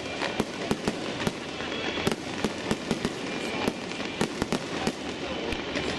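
Aerial fireworks going off: a dense, irregular run of bangs and crackles over a steady hiss.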